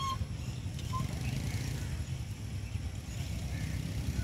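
Steady low background rumble of outdoor noise, with short whistled bird calls right at the start and about a second in, and fainter chirps after.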